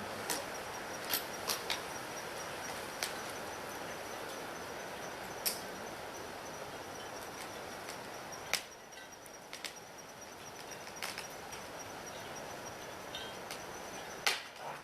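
Steady outdoor background hiss with a faint steady high tone, broken by scattered sharp clicks and knocks; the hiss grows quieter about halfway through.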